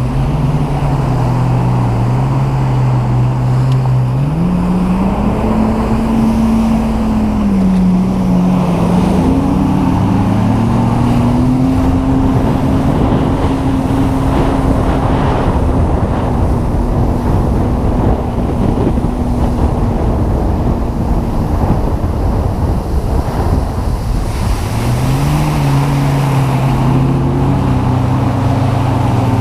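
Sea-Doo personal watercraft engine running under way, its revs climbing about four seconds in and again a few seconds later, holding high, then easing back near the end, with wind on the microphone.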